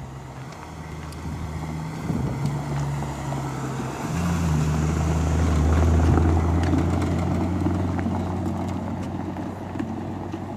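Maserati Spyder's 4.2-litre V8 running at low revs as the car pulls away at walking pace and rolls past, with tyre rumble on cobblestones. It grows loudest about halfway through as the car goes by, then fades as it drives off.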